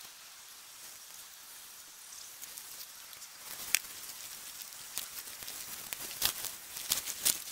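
Faint steady hiss, then from about three and a half seconds in a run of irregular sharp crunches and clicks.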